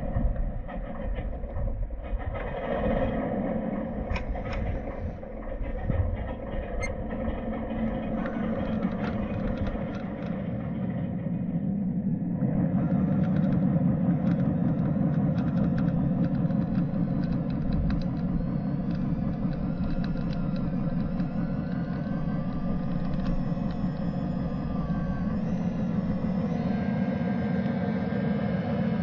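A 1/10-scale Traxxas TRX-4 RC crawler driving, its electric motor and gear drive whining steadily with small shifts in pitch as the throttle changes. Scattered clicks in the first half; the drive gets louder about halfway through.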